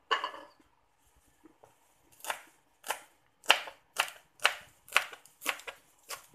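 Kitchen knife chopping celery stalks on a plastic cutting board: a clatter right at the start, then from about two seconds in a steady run of sharp cuts, about two a second.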